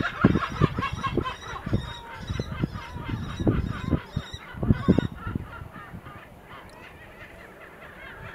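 A flock of birds calling in rapid, harsh honking notes, several a second, dying away about halfway through. Short low thuds run underneath in the first half.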